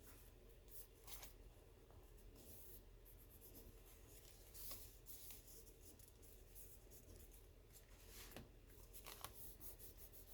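Faint, scattered rustling and soft taps of paper and cardstock being handled, over a low steady hum.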